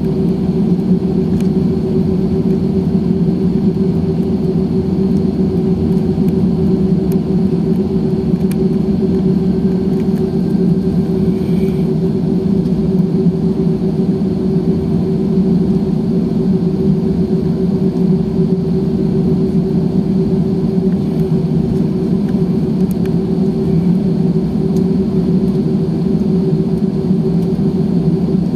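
Steady cabin noise inside an Airbus A320-214 on the ground before takeoff: a constant low hum from its two CFM56-5B engines at idle.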